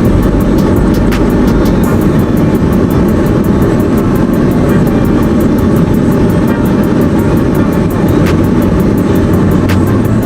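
Steady rumble of a car driving, road and engine noise heard from inside the moving car.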